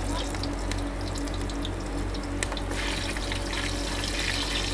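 Hot oil sizzling steadily as fish balls deep-fry in the food cart's fryer, a continuous hiss with fine crackles that grows a little stronger about three seconds in, over a steady low hum.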